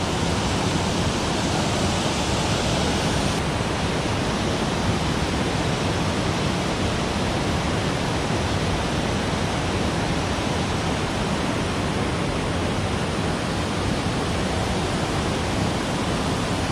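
Steady rush of water spilling over a low weir into a shallow stream.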